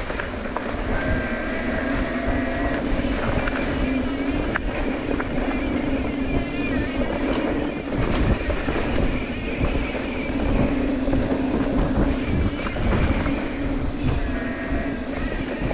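Mountain bike rattling over a rocky trail, with a continuous low rumble, scattered clicks, and a wavering hum underneath.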